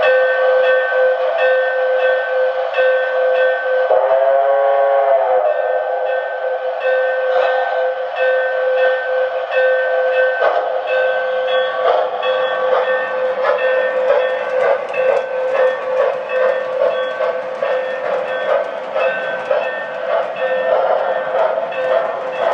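Lionel Lines 8062 O-gauge toy steam locomotive running, its sound system giving a steady tone with evenly repeating higher tones and a steam whistle about four seconds in, the whistle's pitch arching up and back down. From about halfway the passing train's wheels add a rapid clicking over the track joints.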